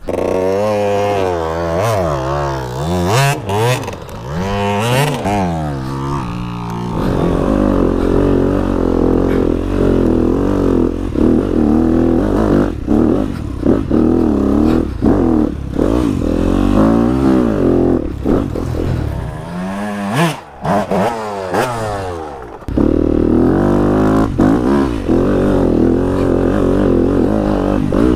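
Yamaha WR250F four-stroke enduro engine, heard from the bike itself: revved up and down over and over for the first several seconds, then pulling steadily under load up a rough trail. The revs drop for a couple of seconds about two-thirds of the way through before it pulls again, with knocks and rattles from the bike over the ground.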